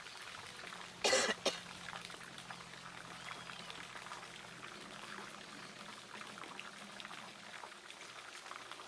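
A person coughs once, a short burst in two parts, about a second in. After that comes a faint trickling of water with small ticks and drips, and a faint steady hum underneath.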